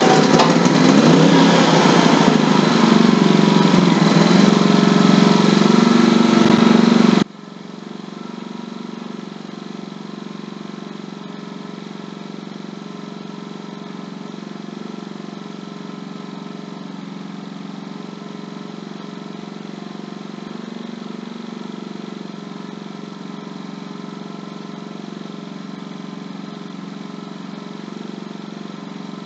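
Ryobi 4000-watt open-frame inverter generator's engine running just after starting, loud and steady, then dropping abruptly to a quieter, even run about seven seconds in.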